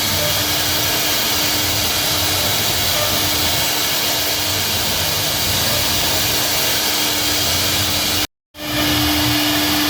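CNC router spindle running steadily as it carves a wooden door panel: a constant, even whine over a loud hiss. About eight seconds in it cuts to silence for a split second, then carries on.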